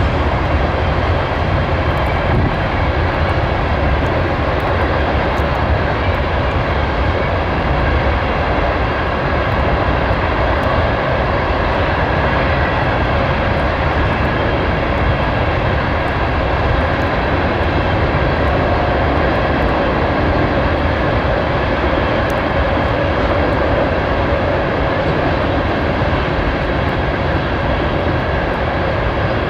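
Steady rumble of a Norfolk Southern freight train's cars rolling past on the rails, unbroken throughout.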